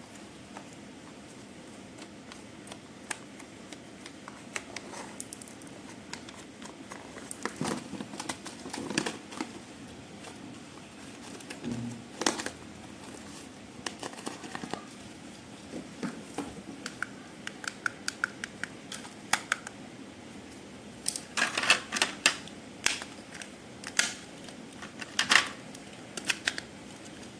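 Handling noise from unboxing toys: scattered clicks, taps and light rustles of hard plastic parts and packaging. A short run of quick, even ticks comes about two-thirds of the way in, and a cluster of louder, sharper clicks near the end.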